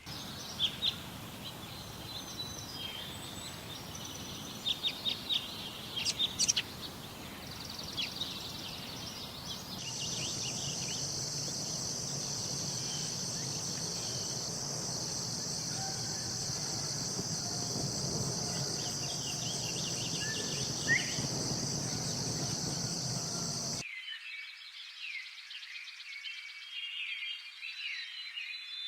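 Birds chirping over a steady outdoor hiss, joined about a third of the way in by a steady high insect drone. The drone cuts off suddenly near the end, leaving only birds chirping.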